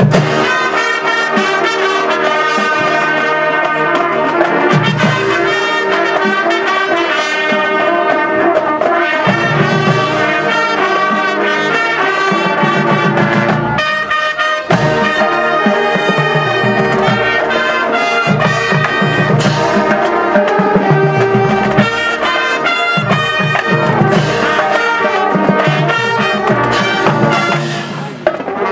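High school marching band playing, led by its brass section of trumpets and trombones, with a momentary break about halfway through.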